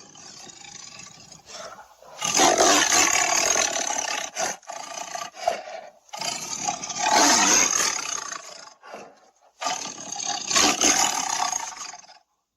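Big-cat roar and snarl sound effects: three long, loud roars one after another, with a quieter growl before them and a few short clicks in the gaps.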